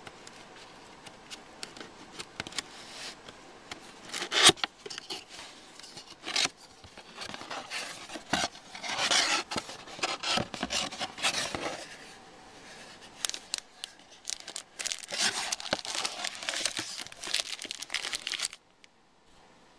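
Packaging being handled and opened: irregular crinkling, rustling and tearing of wrapping, with a few sharp clicks and knocks, the loudest about four and a half seconds in. The noise stops abruptly near the end.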